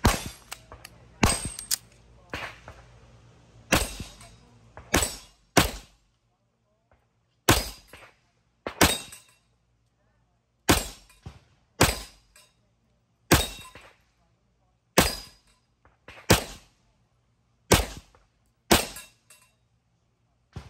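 Staccato 2011-style competition pistol in .40 S&W fired in a slow, evenly paced string of about a dozen shots, one every second or two.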